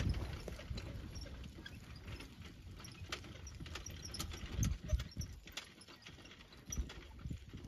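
Hackney pony trotting in harness on a dirt arena, pulling a four-wheeled carriage: soft, uneven hoofbeats with scattered sharp clicks.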